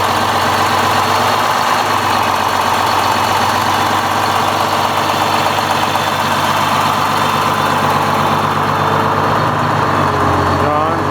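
Turbocharged GM Detroit Diesel 6-71, a two-stroke inline-six, in a 1968 American LaFrance aerial fire truck, running steadily.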